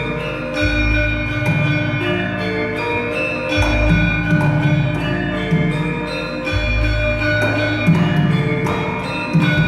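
Javanese gamelan music: ringing metallophone tones in a steady pattern over deep low strokes that come about every three seconds.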